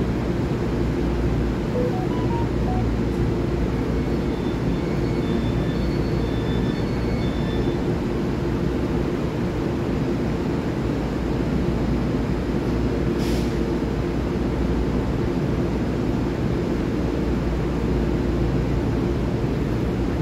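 Steady electrical hum and rumble of a Taiwan Railway EMU3000 electric multiple unit standing at the platform. A string of short high beeps sounds between about four and eight seconds in, and a brief hiss comes about thirteen seconds in.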